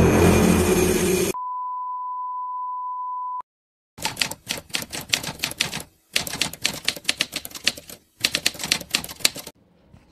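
Intro sound effects: a loud noisy sound that cuts off about a second in, then a steady beep for about two seconds. After a short silence comes typewriter key clatter in three quick runs with brief gaps, as text types out under the logo.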